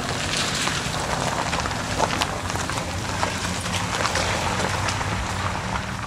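Volkswagen hatchback driving past and away on wet pavement: a steady hiss of tyres on the wet road, full of small crackles, over a low engine hum.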